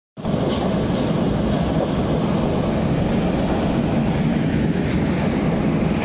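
Wood crusher (industrial wood chipper) running with its infeed conveyor, a loud, steady mechanical rumble.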